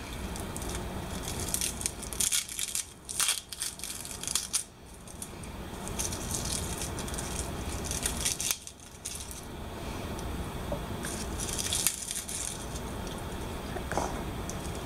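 A garlic bulb being broken apart by hand into cloves, its dry papery skin crackling and crinkling in irregular short bursts.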